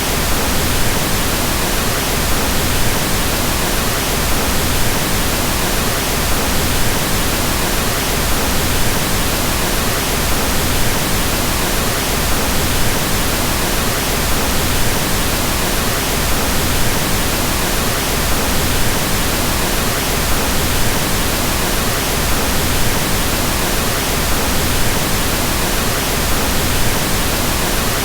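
Pink noise: a steady, even hiss with more weight in the low end than white noise, with no change throughout.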